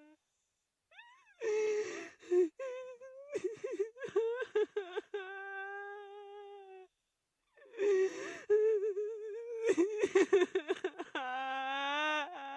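A woman crying: broken, catching sobs and gasps that break into long drawn-out wails, twice over, with short pauses between.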